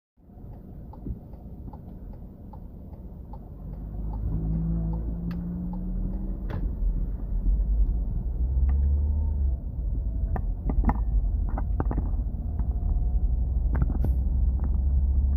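A car on the move: a steady low rumble of engine and road that grows louder about four seconds in, with scattered clicks and knocks.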